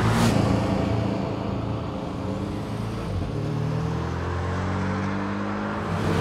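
Porsche 718 Cayman GTS's turbocharged flat-four engine running on track, with a brief burst of noise at the very start. The note sags about two seconds in, then rises steadily from about three seconds on as the car accelerates.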